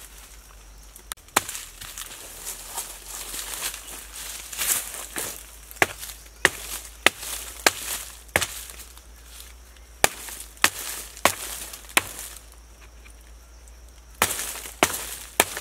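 A hand tool chopping into a rotten log: a string of sharp, separate strikes, about one every half-second to second, with rustling of dry leaf litter between them and a short lull near the end.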